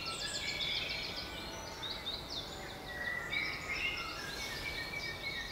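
Several woodland songbirds singing at once: a fast high trill near the start, then scattered chirps and short whistled phrases, over a steady background hiss.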